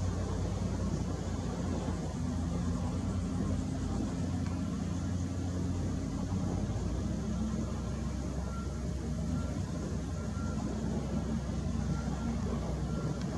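Hitachi ZW310 wheel loader's diesel engine running as the machine works a sand pile, its pitch stepping up and down. Faint intermittent beeping comes in during the last few seconds.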